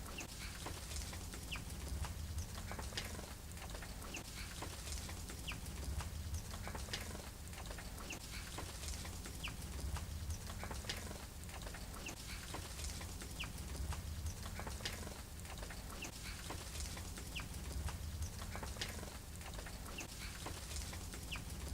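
Small birds chirping and calling at a garden feeder, many short high chirps in quick succession over a steady low rumble.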